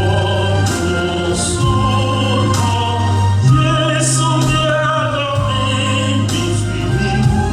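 Choir singing a hymn in long, held notes over a steady low bass accompaniment.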